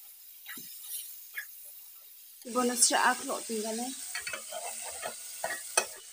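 Chicken pieces sizzling in a metal kadai while a metal spoon stirs and scrapes them, with a few sharp clinks of spoon on pan. The sizzling gets louder about two and a half seconds in.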